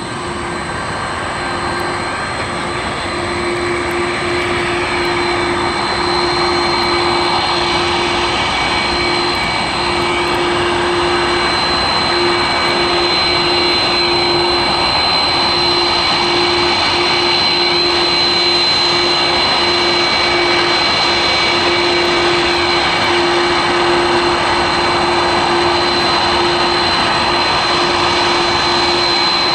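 Airbus A330-200 MRTT tanker taxiing, its two General Electric CF6-80E1 turbofans running at taxi power: a broad jet rush with a steady high whine, growing louder over the first several seconds as the aircraft comes closer, then holding steady.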